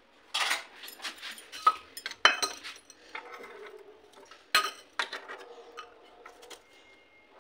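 Sharp metal clinks of steel kitchenware on a gas stove: a small steel bowl and tongs knocking as smouldering cow-dung cake embers are moved into the bowl for smoking buttermilk. There are about seven separate clinks, the loudest about two seconds in and again about four and a half seconds in.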